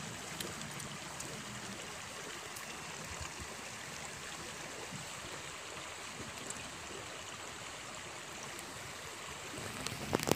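Shallow river running over stones and gravel, a steady even rush of water.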